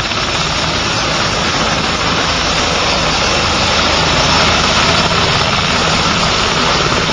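AH-1 Cobra attack helicopter lifting off and climbing away close past: loud, steady rotor and turbine noise with the fast beat of its two-bladed rotor.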